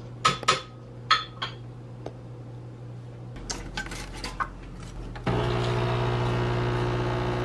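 A few light clinks of kitchenware, then about five seconds in a Smeg espresso machine's pump starts a steady buzz as it pulls a shot.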